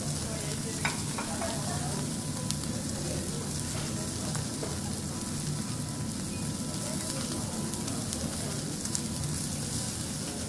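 Thick seasoned Okinawan beef steak sizzling on a teppanyaki iron griddle: a steady frying hiss with a few faint crackles.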